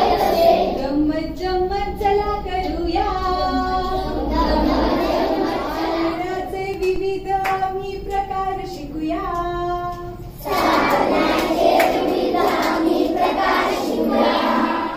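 A group of children singing a song together in unison, with long held notes; the singing gets louder and fuller about ten seconds in.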